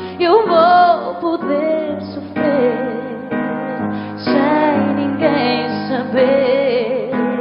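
A woman singing a slow, tender ballad with long held notes and vibrato, over a sustained musical accompaniment.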